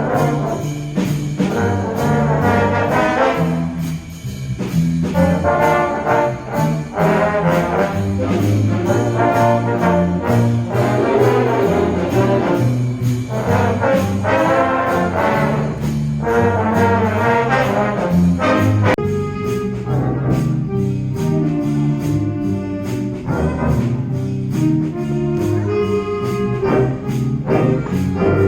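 School concert band playing, with the brass section (trombones and trumpets) to the fore over a steady beat. The music changes to a different passage about two-thirds of the way through.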